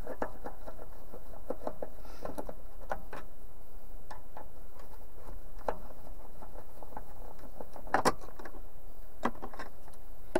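Scattered light clicks and taps of a Phillips screwdriver backing out the two screws that hold a shade-curtain retainer track, with a sharper knock about eight seconds in and another just after nine.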